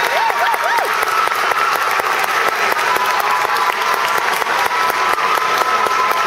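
Audience applauding steadily, a dense patter of many hands, with a few voices calling out over the clapping in the first second.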